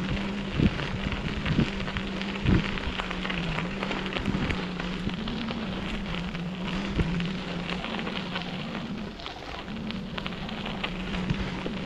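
Bike tyres rolling over a dirt and gravel trail, a steady crackling rumble, with a low hum that wavers slightly in pitch. A few sharp knocks in the first three seconds as the bike jolts over bumps.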